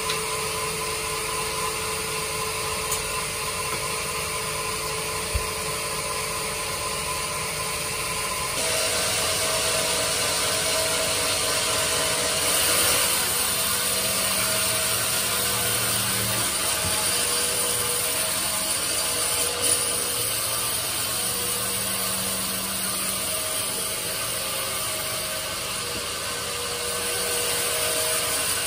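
Sawmill band saw running, then cutting lengthwise through a hard teak log fed past the blade on the carriage. The sound becomes fuller and noisier about a third of the way in, as the cut starts, and stays steady.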